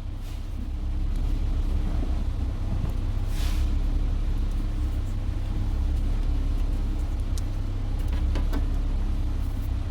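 Steady low rumble of a car engine idling, with a few faint clicks and a brief hiss about three and a half seconds in.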